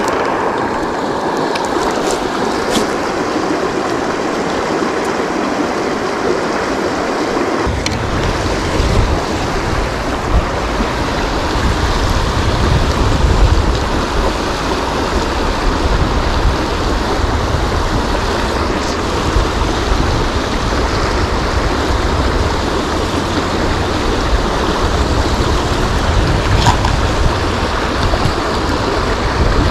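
River water rushing steadily, a dense even hiss. A low rumble joins about eight seconds in.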